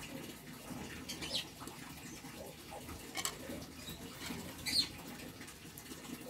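Faint sounds of a caged flying squirrel eating, with three short, high sounds about a second and a half apart, the last the loudest.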